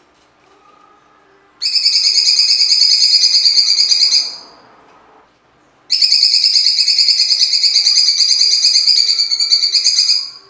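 Blue-winged leafbird (cucak cungkok) singing two long, rapid rattling trills, the first about three seconds and the second about four and a half, with a short pause between them.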